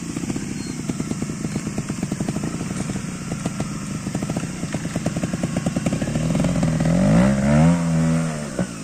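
Trials motorcycle engine chugging at low revs with distinct firing pulses, then revved up and back down in the last few seconds as the throttle is worked.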